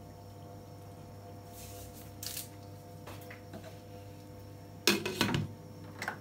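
A glass lid is set down on a metal stockpot, covering it with a short clatter about five seconds in and a small click just after. Before that come a couple of brief soft rustles, and a steady low hum runs underneath.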